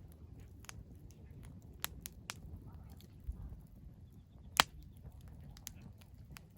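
Wood fire in a fire pit crackling, with scattered small snaps and one sharp, loud pop about four and a half seconds in, over a low steady rumble.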